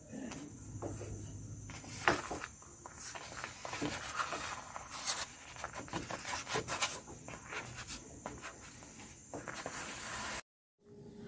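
Wooden spatula stirring thick, nearly cooked semolina in a steel pot: irregular scrapes and knocks against the pot, the loudest about two seconds in, over a faint steady hiss.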